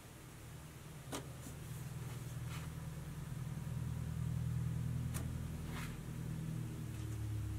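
Hands squishing and pulling apart a stiff, fluffy cloud slime, giving four short soft crackles or pops. Underneath is a low steady hum that grows louder.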